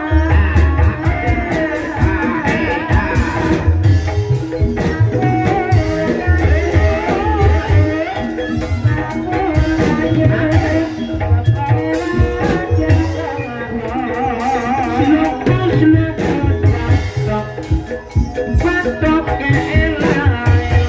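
Live gamelan music for an ebeg hobby-horse dance: ringing pitched metal percussion and repeated deep drum strokes, with a singer's wavering voice over them.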